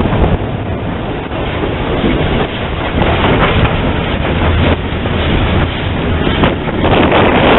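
0-8-0 steam tank locomotive running slowly, heard from its cab: a steady mechanical clatter of running gear and wheels on rail, with no whistle.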